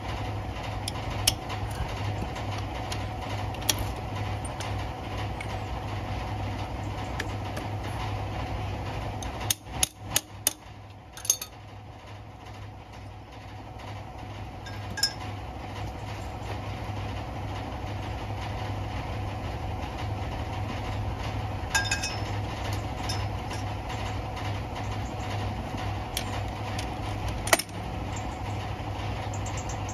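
Steel socket and breaker bar clinking against the truck's wheel nuts in a few sharp metallic knocks as the nuts are worked loose by hand. A cluster of clinks comes about a third of the way in. An engine idles steadily underneath throughout.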